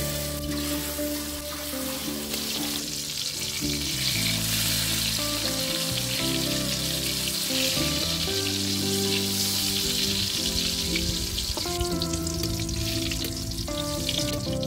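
Hot oil sizzling and crackling in a wok as long green peppers deep-fry, with soft background music underneath.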